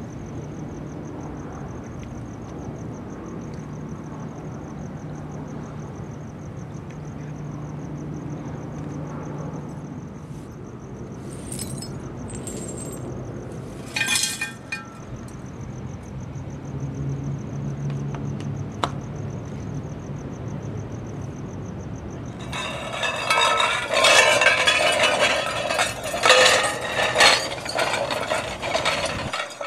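Cut-glass bowls clinking and clattering against one another as they are gathered up, loud and continuous over the last seven seconds and cutting off abruptly near the end. Before that, a low steady hum with a single sharp glass clink about halfway through.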